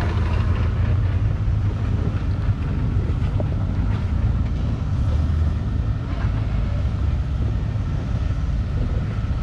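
Low, steady engine rumble of four-wheel-drive vehicles creeping over rock ledges at crawling speed.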